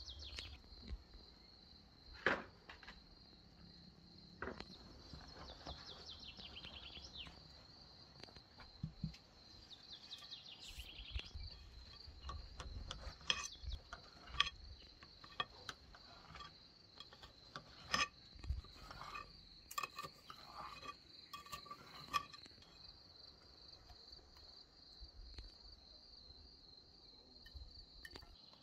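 Crickets chirping in a steady high trill, with scattered sharp clicks and knocks over it.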